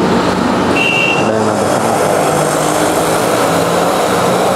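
Steady road traffic noise, with a motor vehicle's engine running close by. A short high tone sounds about a second in.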